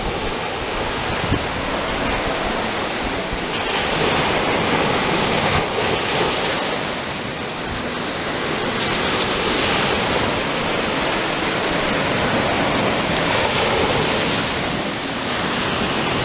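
Ocean surf breaking on the beach: a steady rush of waves that swells and eases every few seconds.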